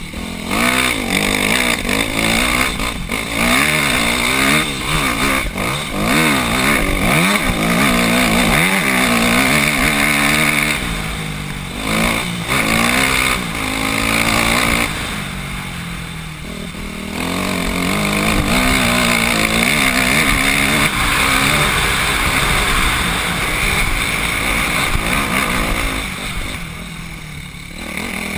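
Dirt bike engine under way off-road, revving up and down through the gears as the rider climbs and rides the trail. It eases off briefly a few times.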